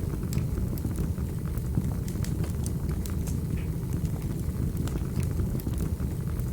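Fireplace fire burning with a steady low rumble and frequent small, sharp crackles and pops.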